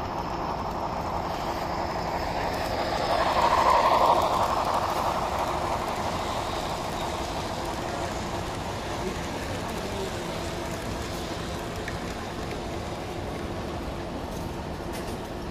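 HO scale model train running on the layout. Its noise swells to a peak about four seconds in as it passes close, then settles to a steady run.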